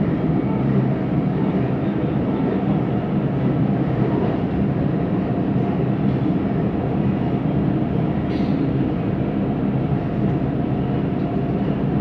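Siemens Inspiro metro train heard from inside the carriage while running between stations: a steady rolling rumble with a low hum. This is the rolling noise that the uploader finds unusual on this train. A faint brief higher-pitched sound comes about eight seconds in.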